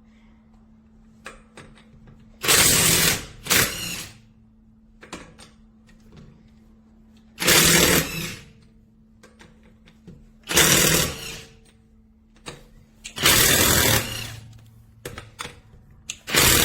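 Seesii 1000 N·m brushless cordless 1/2" impact wrench triggered in short bursts of about a second each, a few seconds apart, its impact mechanism hammering.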